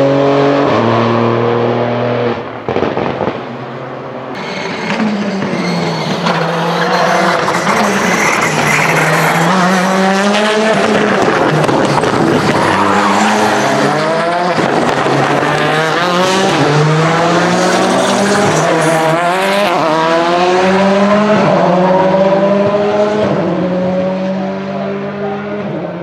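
Rally car engines at full throttle, the revs repeatedly climbing and dropping through quick gear changes as the cars drive past and through corners, with tyres squealing at times.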